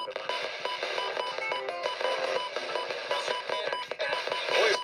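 Radio audio of busy, repeating electronic tones, broken into short on-off pulses at several pitches, with a louder swell near the end.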